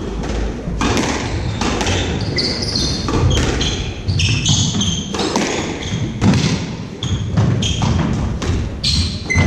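Squash rally: the ball striking rackets and thudding off the court walls at irregular intervals, with shoes squeaking briefly on the wooden floor between shots.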